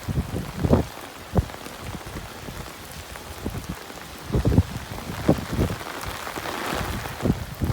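Typhoon rain pouring steadily, with several short, low thumps scattered through it and a louder rush building near the end.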